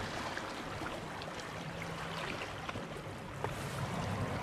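Sea water lapping and splashing in the shallows, full of small irregular splashes, with wind rumbling on the microphone.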